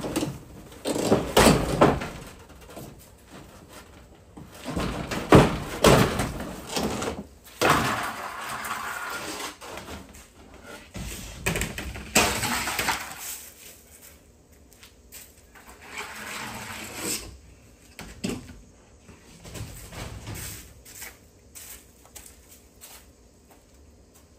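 Demolition work on wooden siding: irregular bangs, knocks and scraping as boards are pried and pulled off. It is busiest in the first half and thins to scattered lighter knocks and clicks.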